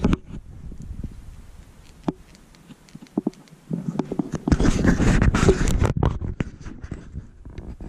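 Handling noise close to the microphone: cloth and gear rustling with scattered clicks and knocks, as when a camera is being handled or carried with its lens covered. The rustling is heaviest from about four to seven seconds in.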